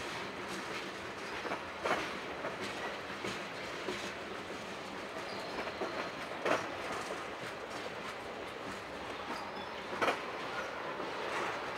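Freight train of railway tank cars rolling past, a steady rumble of steel wheels on rail with a sharp clack every few seconds as wheels cross a rail joint.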